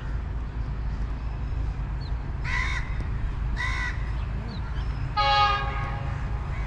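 Two crow caws, then a short blast of a diesel locomotive's horn about five seconds in as the train approaches, over a steady low rumble.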